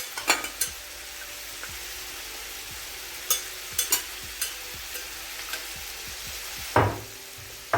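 Chicken thighs frying in olive oil in a pot: a steady sizzle, with scattered sharp pops and clicks and a louder knock near the end.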